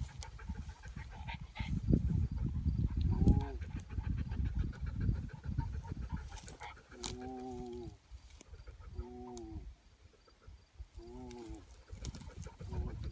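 A man's voice repeating a low, drawn-out "whoa" four times, about two seconds apart, the steadying command given to a pointing bird dog on point. Before that, wind rumble on the microphone and rustling movement.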